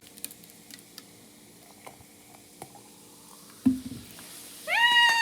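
Vinegar poured onto baking powder, fizzing and crackling with scattered small pops as the home-made volcano erupts. A sharp thump comes about three and a half seconds in, and near the end a loud, high squeal starts and is held.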